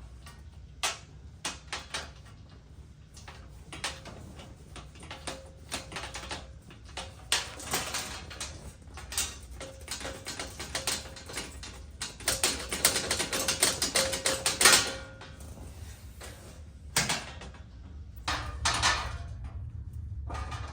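Sharp metal clicks and rattling as a knockout blank is worked out of a breaker panel's cover to open another breaker spot. There are scattered single clicks, with stretches of rapid rattling about a third of the way in and past the middle; the loudest comes about three-quarters of the way through.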